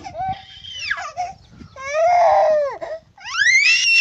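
A toddler crying out in loud, high-pitched wails: short softer sounds at first, a long cry about two seconds in, then a rising, squealing cry near the end.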